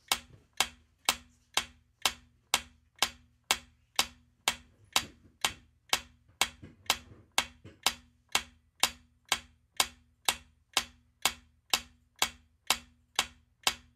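Countdown-timer ticking sound effect: steady clock-like ticks, about two a second, marking the answer time of a quiz question.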